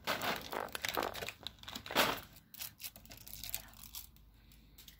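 Plastic sweet wrappers and packets crinkling as they are handled and packed into a cardboard box, with the loudest rustle about two seconds in, then quieter rustling.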